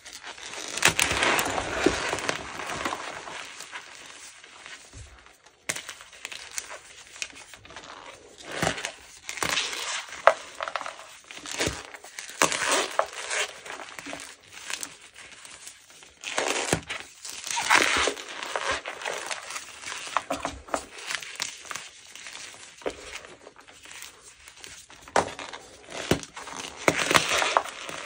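Dyed gym chalk mixed with cornstarch being crushed and crumbled, a dense crunching with many sharp cracks that swells in bursts every few seconds.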